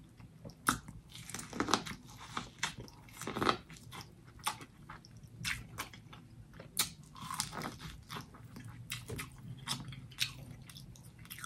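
A person biting kernels off a corn on the cob and chewing them, a run of irregular sharp clicks and wet mouth smacks.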